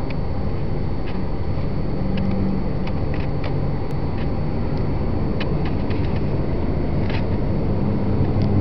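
Steady low rumble of a moving road vehicle heard from inside the cabin, with engine and tyre noise and a few faint, scattered clicks and rattles.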